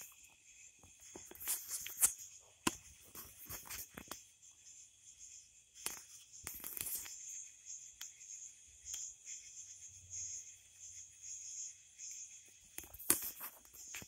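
Night insects chirping steadily in a high-pitched chorus, with scattered clicks and light knocks and one louder knock near the end.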